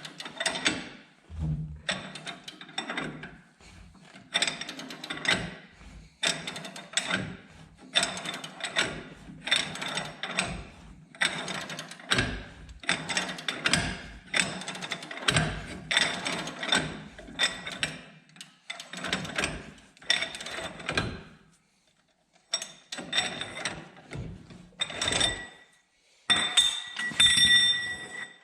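Ball joint press being driven against a seized ball joint in repeated short bursts of metallic clicking, a bit more than one a second, to press it out of the steering knuckle. After a short pause, a few ringing metal clinks come near the end.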